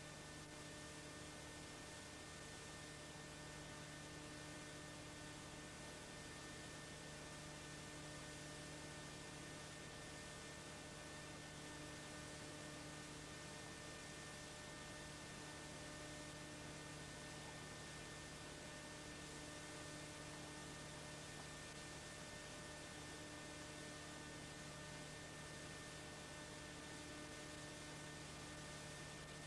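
Steady electrical hum with hiss underneath, unchanging throughout.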